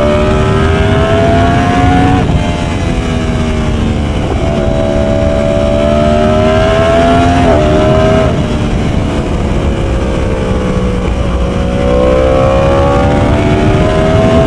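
Yamaha R1 motorcycle with its catalytic converter removed, ridden under throttle: the engine note climbs in long pulls and drops sharply at gear changes about two and seven and a half seconds in, then sags and climbs again near the end.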